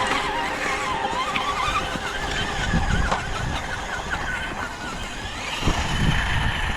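Electric drive motor of an RC rock crawler whining, its pitch wavering up and down with the throttle, over a rough low rumble.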